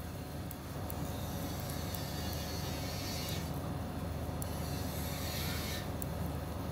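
Steady low background rumble with a few faint light ticks of knitting needles working yarn.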